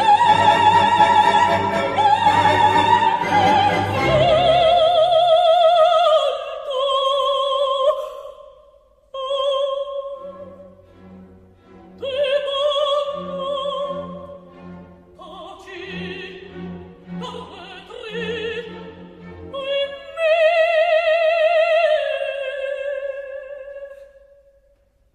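Operatic soprano singing with a wide vibrato over an orchestra. The full orchestra drops away after about four seconds to a light accompaniment of short low notes, and the voice ends on a long held note that fades out near the end.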